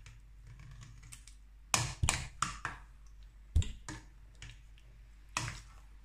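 Serving spoon stirring a thick stew in a stainless steel pot, knocking and scraping against the pot's side in a handful of irregular clicks, the sharpest about two and three and a half seconds in.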